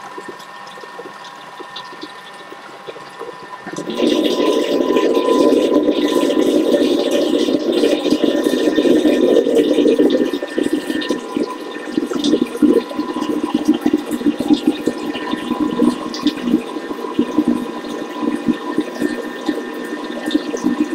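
Thermomix blending thick, fridge-cold cream cheese and eggs at speed 5: a steady churning whir of the blade through the dense mixture. It gets much louder about 4 seconds in, when the measuring cup is out of the lid and the bowl is open at the top.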